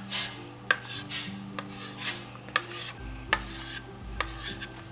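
Chalk scratching on a small chalkboard as a child draws: short rasping strokes, each often starting with a sharp tap of the chalk on the board.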